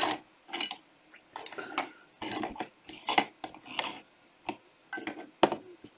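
Trading cards being handled: an uneven run of short clicks, taps and rustles with brief pauses between them.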